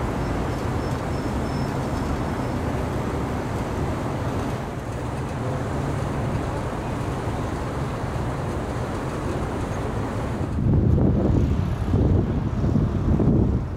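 Steady road traffic noise. Near the end, louder gusts of wind rumble on the microphone.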